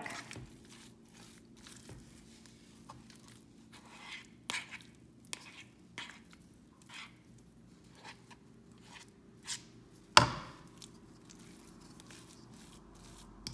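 A fork and spatula mashing eggs into choux pastry dough in a nonstick pan: irregular soft clicks and scrapes of metal on the pan, with one louder knock about ten seconds in. A faint steady hum runs underneath.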